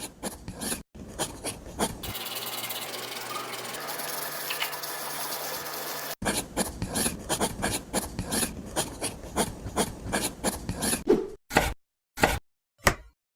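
Scraping and rubbing of a small hand tool on a miniature brick build in quick repeated strokes, about three or four a second, with a steadier scraping stretch in the middle and a few separate clicks near the end.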